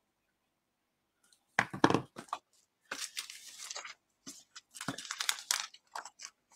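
Crinkling and rustling of a clear plastic sleeve and a sheet of adhesive pearl embellishments being handled. The sound starts about a second and a half in and comes in several uneven bursts.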